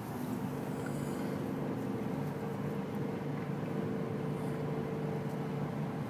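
Steady road noise and engine hum inside a moving car's cabin, cruising on an asphalt highway.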